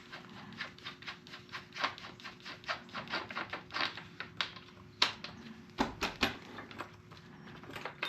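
Quick run of light metallic clicks, about four or five a second, as the loosened rear axle nut is backed off the axle. There are a few louder knocks about five and six seconds in.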